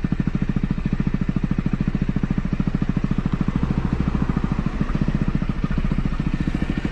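Motorcycle engine idling, with an even, rapid pulse of about ten beats a second.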